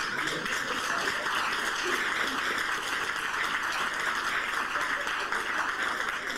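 A theatre audience laughing and clapping, a steady din of many people.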